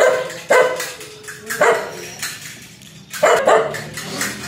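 A small black dog barking aggressively: about five short, sharp barks, irregularly spaced, with two in quick succession near the end.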